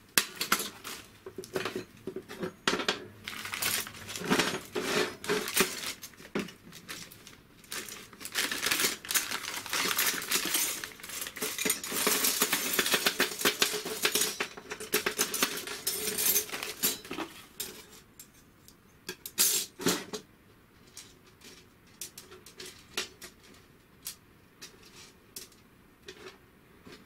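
Small steel gearbox parts and coil springs clinking and being set down on a steel chequer-plate workbench, with a plastic parts bag crinkling through the middle of the stretch. The clicks grow sparser near the end as the springs are laid out one by one.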